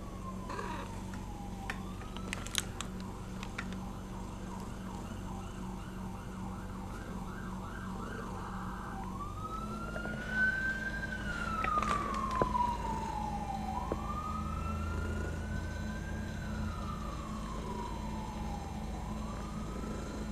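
Emergency vehicle siren, its pitch sliding up and down: a fast yelp of about two sweeps a second for several seconds, then a slow wail rising and falling every few seconds. A few sharp knocks come through near the middle.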